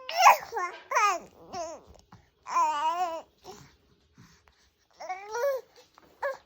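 A four-month-old baby babbling and cooing in a string of high, pitch-sliding vocal sounds, one longer wavering squeal in the middle, with short pauses between.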